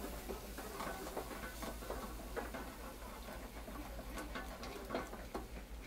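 Salt cod with garlic cooking in olive oil in a pan, crackling with many small irregular clicks and ticks.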